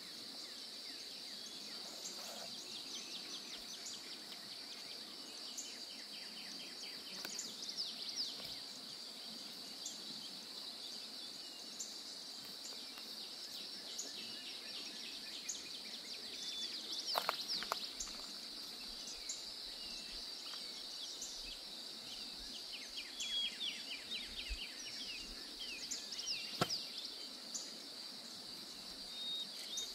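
A steady high-pitched drone of insects, with birds chirping and trilling now and then. There are a couple of sharp clicks, about halfway through and again near the end.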